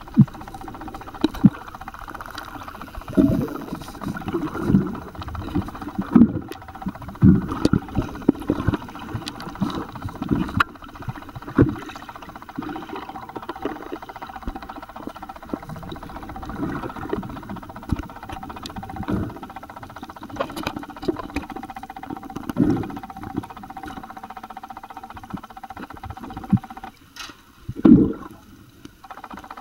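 Muffled underwater sound through a camera's waterproof housing: irregular short knocks and bubbling over a steady faint hum.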